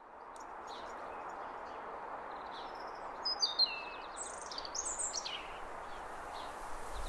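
A steady outdoor hiss of background noise fades in. About three seconds in, a songbird sings a couple of seconds of quick whistled phrases that rise and fall.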